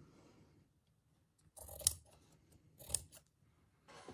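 Fabric shears cutting through cloth in three short snips, about a second apart.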